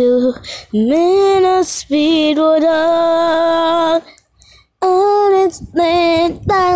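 A girl singing a wordless tune in long, steady held notes, with a short break a little after four seconds in.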